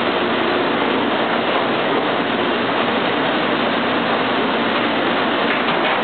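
Commercial conveyor dishwasher running, a steady, loud noise of machinery and water that holds level without a break.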